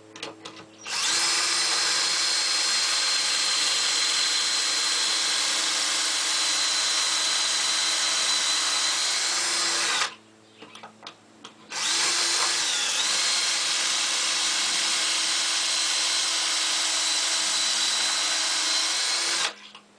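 Power drill running a pocket-hole bit with a depth collar into a wooden framing piece held in a pocket hole jig: two long, steady runs of about nine and eight seconds with a short pause between, drilling the angled screw holes.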